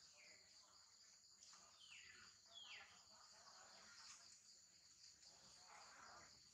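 Faint, steady, high-pitched drone of insects, with a few short calls that fall in pitch about two seconds in.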